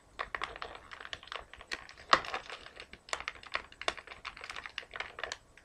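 Irregular small clicks and taps of hands working an action figure out of its plastic packaging and twist ties.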